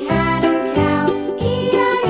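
Upbeat children's nursery-rhyme music with a steady beat and bright tinkling notes, likely with singing over it.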